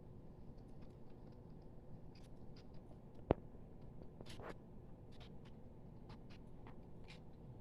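Faint scratching and rustling of a cat moving about in a hamper of stuffed animals, with scattered light ticks and one sharp click about three seconds in.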